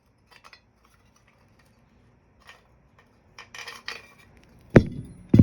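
Loose metal small-engine parts clinking and clattering as they are handled and set down, ending in two loud knocks close together near the end.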